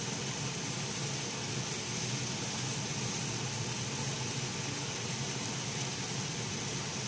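Diced pork and vegetable filling sizzling steadily in a frying pan as it is stirred with a spatula, over a low steady hum.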